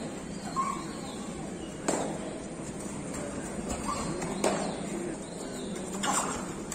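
Players moving on a kabaddi court's foam mats during a raid: three sharp slaps or stamps about two, four and a half and six seconds in, with short squeaks, over the steady murmur of a hall.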